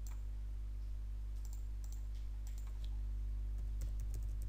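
Computer mouse clicks, a few scattered over the first three seconds, then keyboard typing that starts about three and a half seconds in. A steady low electrical hum runs underneath.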